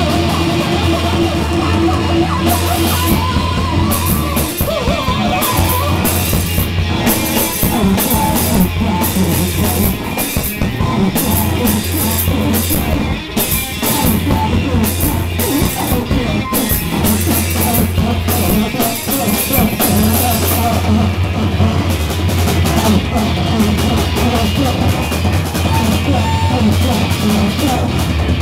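Live rock band playing loud: distorted electric guitar over a drum kit with crashing cymbals, and a heavy low note that cuts out and comes back every few seconds.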